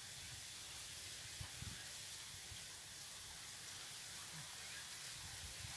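Faint, steady outdoor hiss with a light, uneven low rumble: quiet riverbank ambience.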